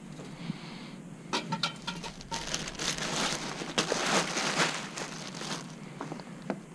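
Handling noise: a few light clicks about a second and a half in, then about three seconds of rustling and crinkling as things are handled and rummaged through.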